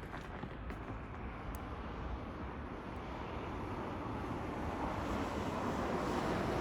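Outdoor rushing noise that slowly swells louder over several seconds, with a few faint clicks near the start.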